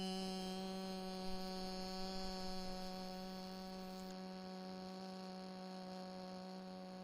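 A single voice chanting one long, steady tone on a meditation sound, meant to be felt as vibration in the chest. It slowly fades.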